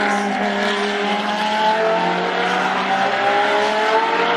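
Several GT race cars' engines running hard through a corner, their notes rising in pitch as they accelerate, several engines heard at once.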